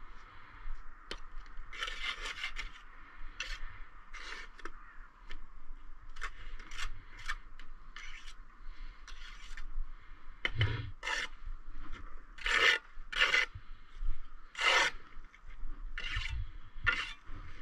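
Steel trowel scraping mortar on brickwork: a run of short, irregular rasping strokes, louder in the second half, with a couple of dull knocks.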